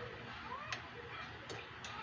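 Three light clicks of a metal ladle against a stainless-steel pot while skimming foam off boiling mung beans, over a faint steady hiss from the boiling pot.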